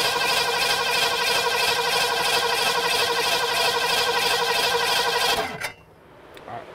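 1967 Mustang's small-block Ford V8 cranking on the starter with no spark, the coil disconnected. It spins at a steady speed with only a slight lope and no dead spots or surging, a sign of healthy, even compression. The cranking stops suddenly about five and a half seconds in.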